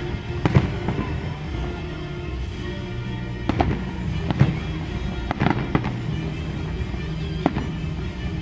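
Aerial fireworks shells bursting: a string of sharp bangs at irregular intervals, some in quick pairs, over music playing throughout.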